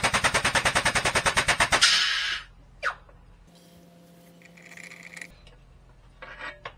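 Air-over-hydraulic shop press pumping with a rapid, even clatter, about ten strokes a second, as it presses a new ball joint into a rear lower control arm. The pumping stops about two seconds in with a short hiss of air, and a single click follows.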